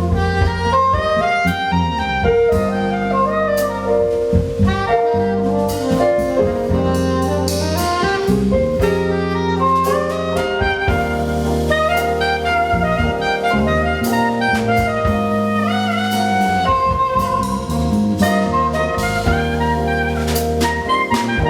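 A jazz band playing live: a soprano saxophone melody over keyboards, a sustained bass line and a drum kit.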